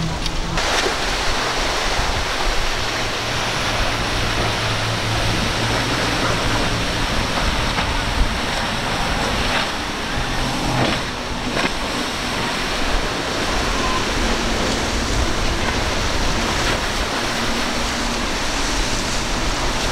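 Steady rush of breaking surf and boat wake spray, with the low drone of outboard engines running at speed underneath.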